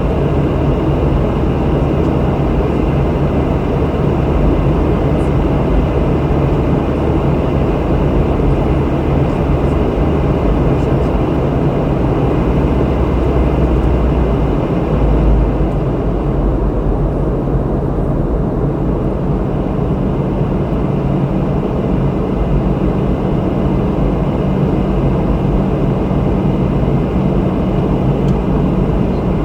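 Steady in-flight roar of a Boeing 717: rushing airflow and the hum of its two tail-mounted Rolls-Royce BR715 turbofans, heard from the cabin. The low drone shifts slightly about halfway through.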